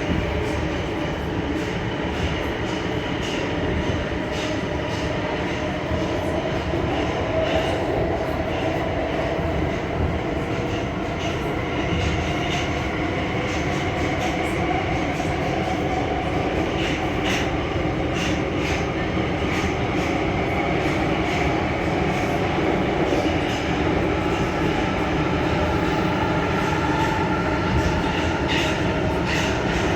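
Metro train running: steady rumble and rattle of wheels on track, with a motor whine whose tones slowly shift in pitch, and a few short squeaks and clicks from the wheels.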